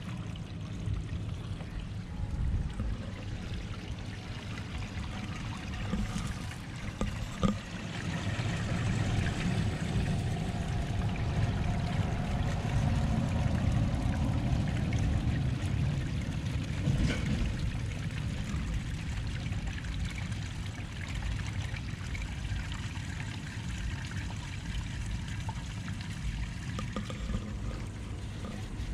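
Grey water from a travel trailer's grey tank pouring through a corrugated sewer hose into a dump station inlet: a steady rush of draining water that grows louder about eight seconds in. There is one sharp click about seven seconds in.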